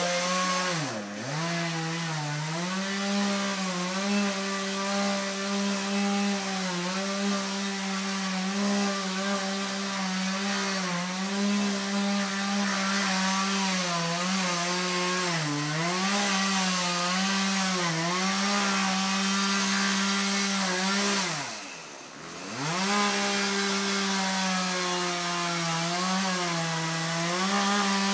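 Chainsaw running at high revs while cutting wood; the engine note sags under load several times and twice drops sharply off throttle, about a second in and again near twenty-two seconds, before revving back up.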